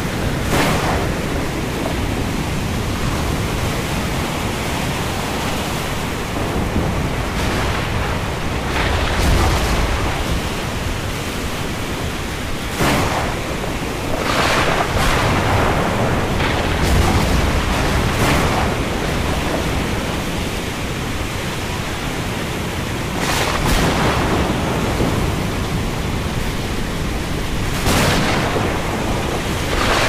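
Thunderstorm: thunder cracks and rolls several times over a steady rushing noise, with deep rumbles swelling after the cracks.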